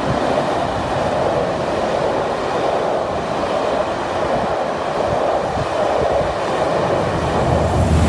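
Passenger coaches of a steam-hauled train rolling past below, a steady noise of wheels on the rails that grows a little louder near the end.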